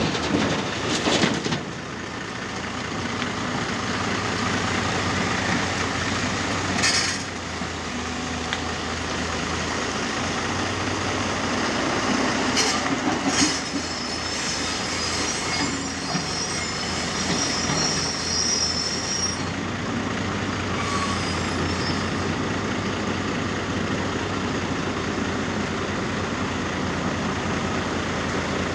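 Tata Hitachi 200 excavator's diesel engine running steadily at a rock quarry face, with a few loud clatters of rock in the first half and a thin high whine in the middle.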